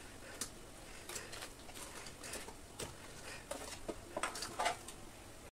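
Fried vadas dropped one by one into a steel bowl of water: irregular small splashes and drips, with a few louder plops near the end.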